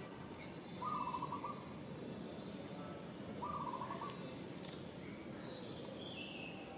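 Birds calling over a steady low background hiss: a short quavering note sounds twice, with short high falling chirps about every second and a half, and a falling run of notes near the end.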